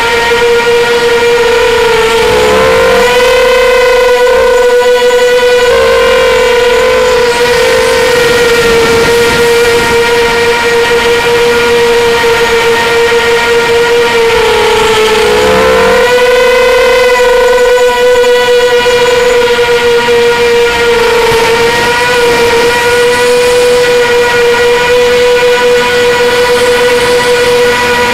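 Strider Flex 250 FPV quadcopter's brushless motors and propellers whining steadily, heard up close from its onboard camera. The pitch dips and swings back up briefly with throttle changes about two to three seconds in and again around fifteen seconds.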